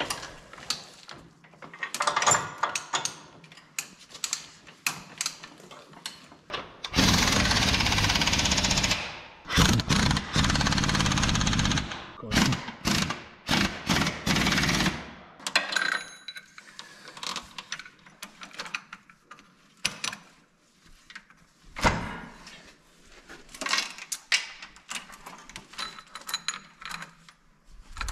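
Air impact wrench hammering in bursts: a long run about seven seconds in, then several shorter ones over the next few seconds. Before and after come clinks and knocks of tools and steel, and a roller chain rattles near the end.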